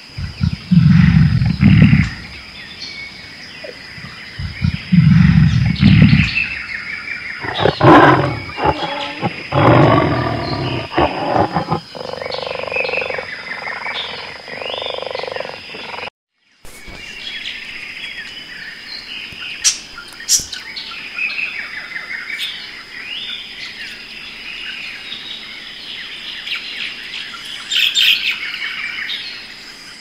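A big cat's deep roars and growls, loudest around one and five seconds in. Then, after a short break, many high bird chirps and calls.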